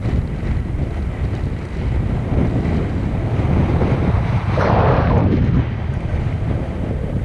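Wind buffeting the microphone in a steady, heavy rumble. A brief louder rushing burst comes about two-thirds of the way through.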